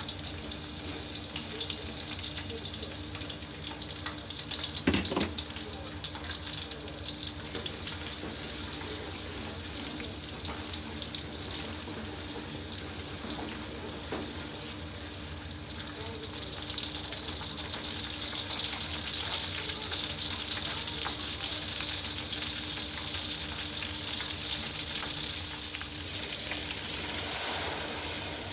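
Food frying in hot oil in a pot, a steady crackling sizzle with a low steady hum beneath it. A brief knock about five seconds in.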